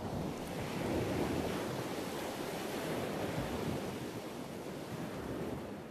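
Heavy sea surf breaking and washing over rocks, a steady rushing wash of waves that begins to fade out near the end.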